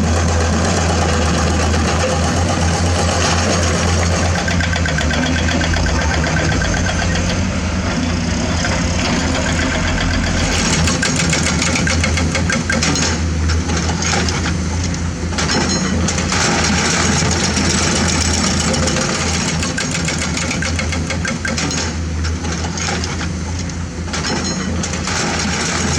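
Diesel engines of a Komatsu PC210 excavator and Hino 500 dump trucks running, a steady low hum under a constant noisy rattle.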